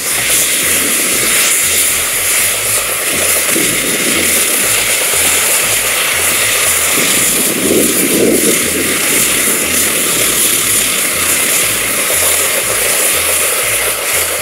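Sawmill run by a 1912 Case 110 steam traction engine, working with a loud, steady hissing whirr over a rough low rumble; the sound swells in the middle range for a couple of seconds around the middle.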